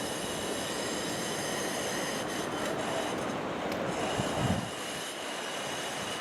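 Steady roar of heavy surf breaking on the shore, stirred up by an approaching typhoon, with a brief louder low rumble about four seconds in.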